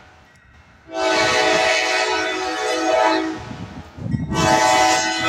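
Kansas City Southern diesel locomotive's air horn sounding for a grade crossing: a long multi-tone blast starting about a second in, a short break, then another blast starting near the end. The locomotive's low rumble is heard in the break.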